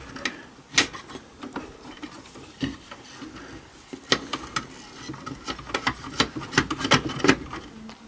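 Irregular clicks and small knocks of cable connectors being handled and pushed into their sockets inside a small server's metal chassis, with a denser run of clicks near the end.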